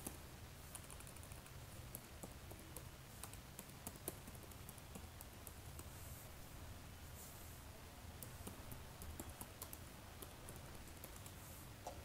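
Faint keystrokes of typing on a computer keyboard, irregular clicks as short terminal commands are typed, over a steady low hum.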